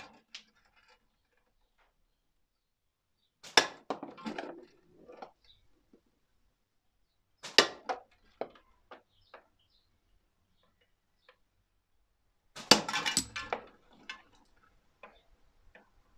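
Three slingshot shots striking the hanging tin-can target and its catch box, roughly four seconds apart. Each is a sharp impact followed by a short clatter; the third is the loudest and longest.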